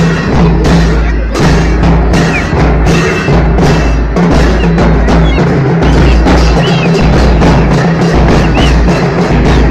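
Large double-headed bass drums beaten with sticks, a loud, steady marching rhythm of repeated heavy beats, with the sharp strokes of other percussion over it.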